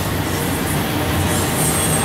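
Autorack freight cars rolling past close by: steady noise of steel wheels on the rails, with a brief high squeal near the end.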